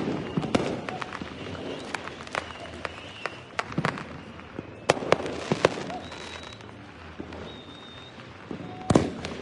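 Fireworks going off: irregular sharp cracks and pops, with louder bangs about five and nine seconds in and a few short high whistling tones in between.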